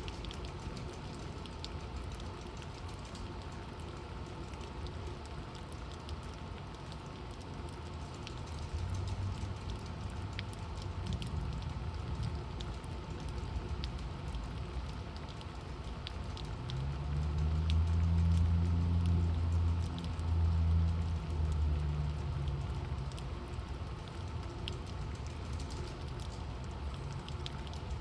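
Torrential rain falling steadily, with scattered drop clicks. A low rumble swells about two thirds of the way in, is loudest for a few seconds, then fades back under the rain.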